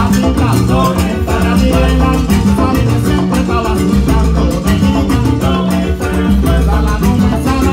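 Salsa orchestra playing live, with congas, timbales and a repeating bass line driving a steady dance beat.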